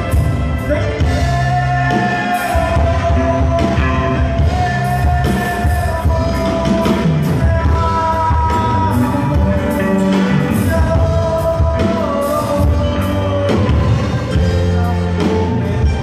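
Live band playing a Latin romantic song: electric bass, electric guitar, drums and keyboards, with a long held lead melody bending over a steady beat.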